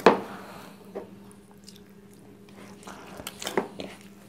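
Hands kneading soft, wet pizza dough in a bowl: squelching and slapping, with a sharp slap right at the start, another about a second in and a few more past three seconds. A low steady hum runs underneath.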